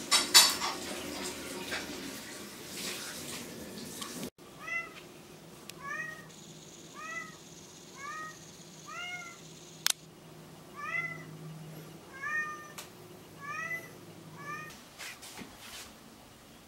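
Tabby cat meowing over and over at a glass door, asking to be let in: about a dozen short meows, each rising and falling in pitch, one a little under every second. Before the meows, a few seconds of rushing noise with a loud knock near the start.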